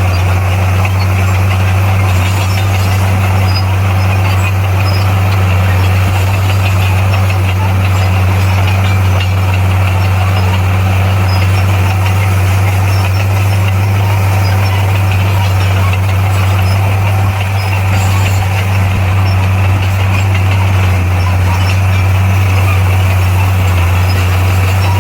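Bulldozer's diesel engine running steadily, a loud constant low drone that stays at one pitch throughout.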